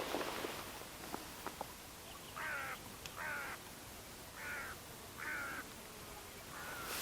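A crow cawing five times, short harsh calls spaced about a second apart, the last one fainter. A few faint clicks come before the first caw.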